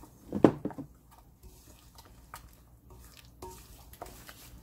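Wooden spoon stirring red pepper powder into a wet seasoning paste in a glass bowl: a sharp knock about half a second in, then scattered light taps and scrapes of the spoon.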